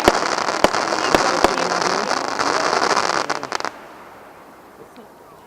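Fireworks going off: a dense crackling with several sharp bangs, which stops abruptly about two-thirds of the way through.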